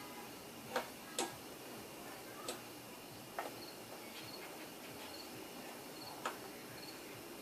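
A few sharp, scattered clicks over a quiet background, with a faint high cricket chirp repeating at an even pace, a little under once a second.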